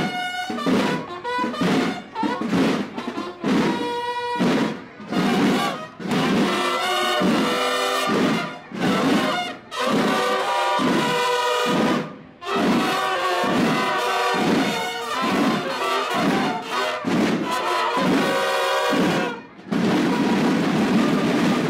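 A school drum and bugle band playing: brass horns sound short phrases in rhythm over snare and bass drums. Near the end the horns stop and the drums play on alone.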